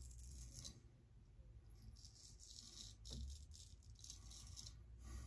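Straight razor cutting lathered stubble on the neck: several short, faint, crisp scraping strokes spaced about a second apart, over a low steady hum.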